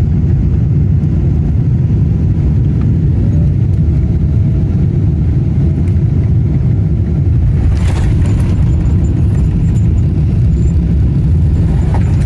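Boeing 777's twin jet engines rumbling steadily and loudly as it lands, with a faint rising whine a few seconds in and a brief hiss about two-thirds of the way through.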